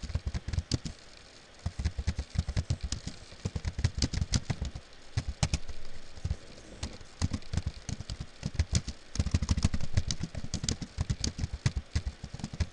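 Computer keyboard keys clicking as someone types, in quick irregular runs broken by a couple of short pauses.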